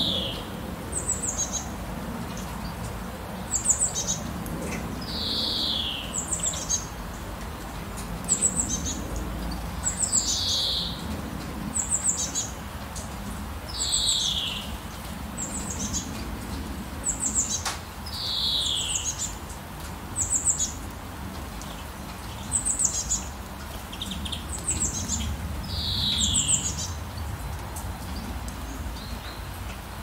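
Steady rain hiss with birds calling over it. Short high chirps alternate with longer downward-sliding whistles every second or two, and the calls stop a few seconds before the end.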